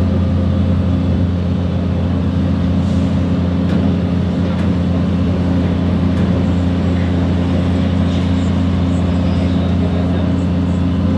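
Heavy diesel engine running at a steady speed, a deep even drone that does not change.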